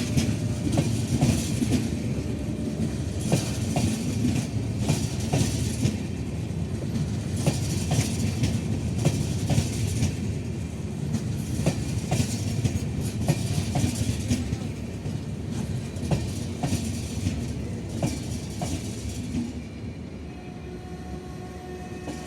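Indian Railways passenger coaches running on the track: a steady rumble of wheels on rail with repeated clacks over rail joints. The sound eases off a little near the end.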